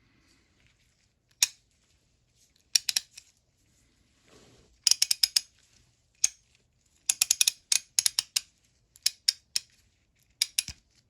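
SK push-button ('Frankenstein') 1/2-inch drive ratchet worked by hand, its pawl clicking over the coarse 24-tooth gear in several short, quick runs of sharp clicks.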